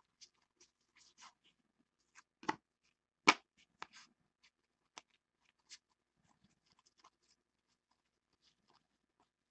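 2015 Panini Contenders Baseball trading cards sliding and flicking against each other as a stack is thumbed through by hand: scattered soft clicks and rustles, with two sharper taps about two and a half and three seconds in, the second the loudest.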